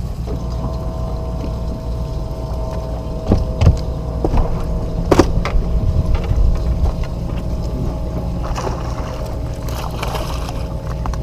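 Bow-mounted electric trolling motor humming steadily over a low rumble, with a few sharp knocks in the middle. Near the end a hooked bass splashes at the surface as it is played to the boat.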